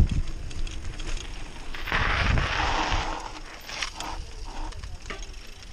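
Mountain bike rolling over rough trail ground, tyre noise and rattling with scattered clicks, and a louder hiss from about two to three seconds in.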